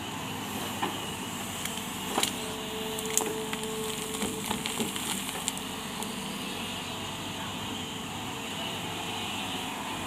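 Hydraulic crawler excavator running steadily while working, with a string of sharp knocks and clatters between about two and five and a half seconds in, and a brief steady whine a few seconds in.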